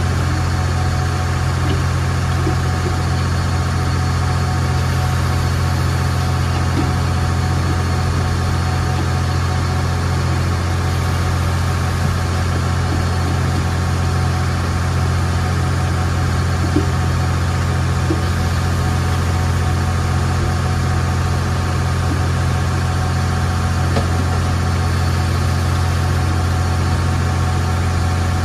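A riverboat's engine running steadily under way: a loud, even, low drone that does not change.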